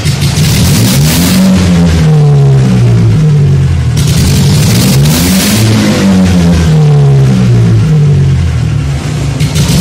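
Engine being revved over and over: its pitch climbs quickly, then sinks back slowly before the next rev.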